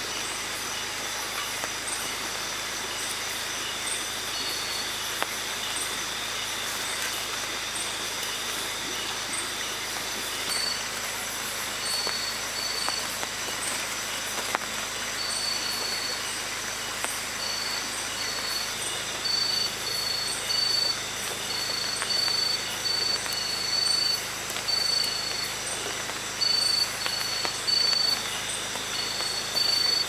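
Night insect chorus in tropical rainforest: several steady high-pitched trills, one that pulses on and off more often and louder in the second half, and a short chirp repeating about once a second, over a steady hiss.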